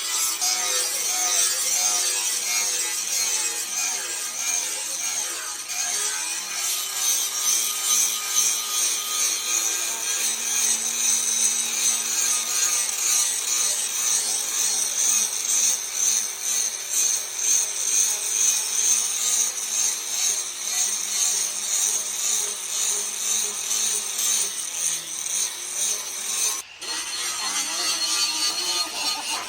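Steel being abraded in repeated rasping strokes, as in filing or sawing the leaf-spring hoe blade, with a brief break near the end.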